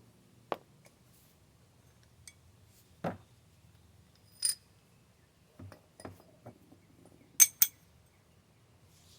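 Metal hand tools and parts clinking and knocking as they are handled and set down, single sharp clinks spread apart, some with a brief bright ring. The loudest are two ringing clinks in quick succession about seven and a half seconds in.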